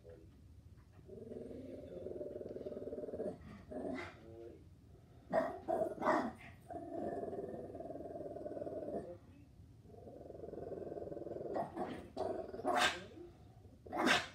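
Havanese dog growling in three long stretches of a few seconds each, broken by a handful of short, sharp barks, two in quick succession a little past the middle and two more near the end.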